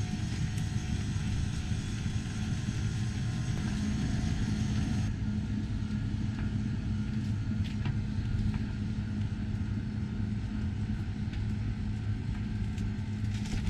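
A steady, low mechanical hum from running machinery, an even drone that holds unchanged throughout.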